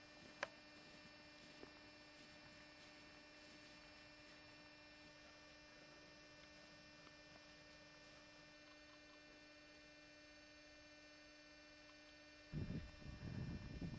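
Near silence with a steady electrical hum in the recording and a single click about half a second in. Near the end a low, irregular rumbling noise starts suddenly and is the loudest sound.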